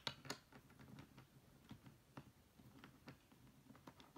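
Faint, scattered light clicks and taps of small web-bolt clamp hardware being handled and fitted against a kayak's crossbar mounting board, with a slightly firmer click just after the start.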